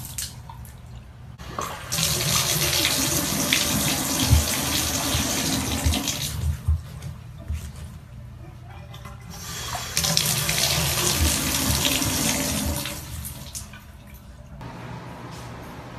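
Bathtub tap running in two spells of several seconds each, water pouring into the tub, with a few low knocks during the first spell.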